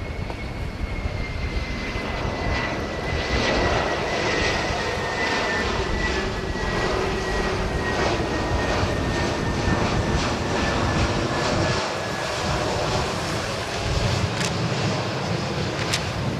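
Airbus A320-211's CFM56 turbofan engines on landing approach, passing low overhead with gear down: a steady jet roar that grows louder about three seconds in, with a high whine that slowly falls in pitch as the airliner goes by.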